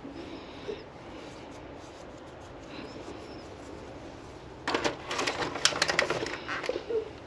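A clear plastic clamshell egg carton being handled and filled with hen eggs, giving a dense run of crackling plastic clicks and egg taps that starts a little past halfway through.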